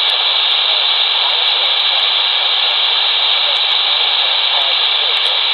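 Steady hiss and static from an AOR AR8000 shortwave receiver in upper-sideband mode, tuned to 21.300 MHz on the 15 m amateur band, with only faint wavering traces beneath the noise. The band-limited hiss is the sound of the receiver with no strong signal coming through at that moment.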